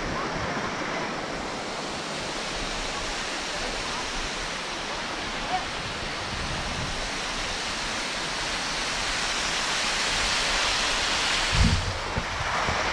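Waterfall pouring over stepped rock ledges: a steady rush of water, with a brief low thump near the end.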